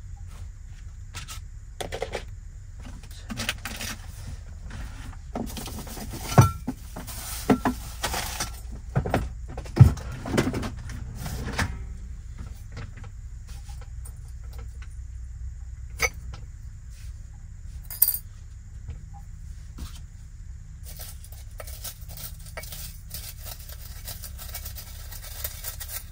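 Small ceramic teacups, a clay teapot and its lid clinking and knocking as a gongfu tea set is laid out, in a flurry of sharp taps over several seconds and then two single clinks. Near the end comes a fine crackly rustle as dry tea leaves are spooned into the pot. A low steady hum runs underneath.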